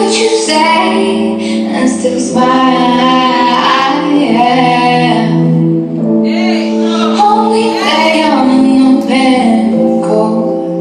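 A recorded song: a woman singing a slow melody over held chords.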